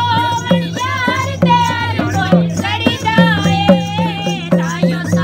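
A woman singing a folk melody over a steady, evenly spaced beat on a barrel drum.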